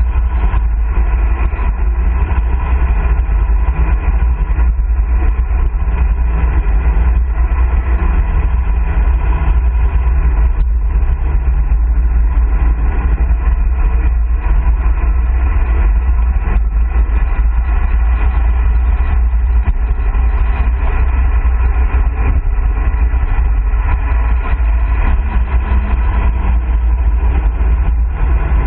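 Loud, steady wind rush buffeting the microphone of a handlebar-mounted camera on a road bike descending at 40 to 50 km/h.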